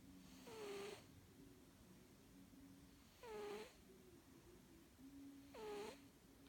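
A sleeping cat snoring faintly: three breathy snores about two and a half seconds apart, each with a squeaky edge that drops in pitch, over a soft low rumble between breaths.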